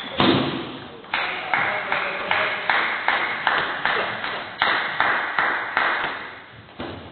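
A table tennis rally: the ball clicks off the bats and the table in a quick, even run, about two or three hits a second, and each hit echoes in a large hall. The rally ends about six seconds in, and one more hit comes near the end.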